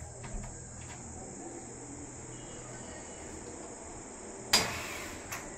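Steady faint high-pitched chirr in the background; about four and a half seconds in, a single sharp knock with a short ring from the frame of a pleated sliding mosquito-net door, then a lighter click.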